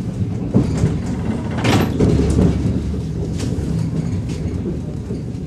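Inside a moving ER2T electric multiple unit carriage: a steady low running rumble, broken by irregular sharp knocks and rattles from the wheels and car body. The loudest knock comes about a second and a half in.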